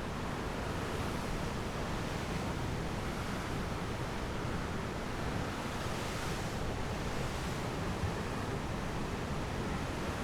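Ocean surf washing in steadily, swelling a little a couple of times, with wind.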